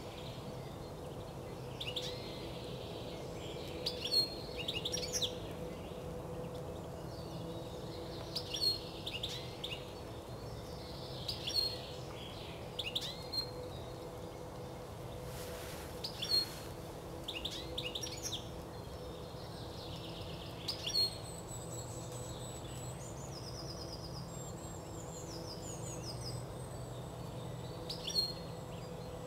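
Small songbirds calling in short high chirping phrases every second or two, with a run of thin, higher notes about two-thirds of the way through. Under the birds run a steady low rumble and a faint hum.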